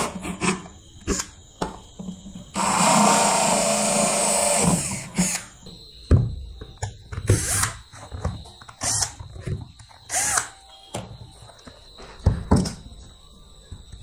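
Cordless drill with a hole saw cutting through the plastic wall of a washing-machine tub, in a few short bursts and then one longer run of about two seconds. From about six seconds in, plastic washing-machine gearbox parts knock and clatter as they are handled.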